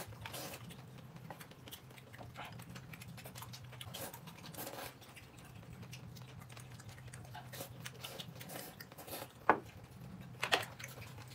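A person eating quietly: small chewing and mouth clicks throughout, with a few sharper smacks in the last two seconds, over a steady low hum.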